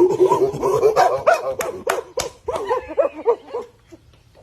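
A dog yipping and whining in quick, short calls that rise and fall in pitch, with a few sharp clicks about halfway through; the calls die away shortly before the end.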